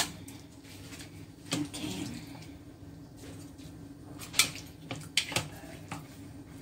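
Chopsticks clicking and knocking against a steel pan and a plastic bowl as raw marinated chicken pieces are picked up and laid in place: scattered sharp clicks, the loudest about four and a half seconds in, over a steady low hum.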